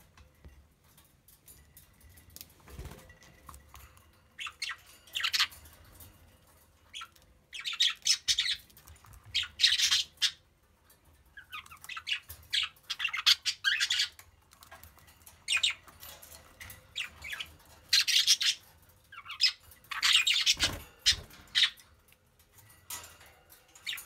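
Budgerigars chirping and chattering in repeated bursts of high, rapid notes, quiet at first and busiest from about seven seconds in.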